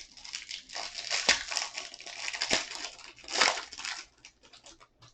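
Packaging of a trading-card hanger box being torn open: dense crinkling and crackling of plastic wrap and cardboard, with a few sharp snaps and a louder rip about three and a half seconds in. The crinkling thins out to scattered ticks near the end.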